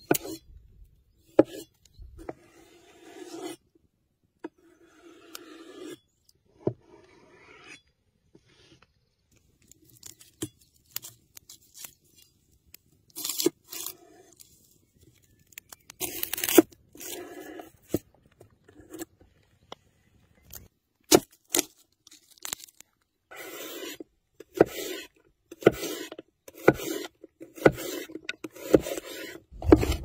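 Cleaver cutting tomatoes and a red bell pepper on a wooden cutting board: sharp knocks of the blade against the board and short scraping strokes, scattered at first and coming quickly one after another in the last several seconds.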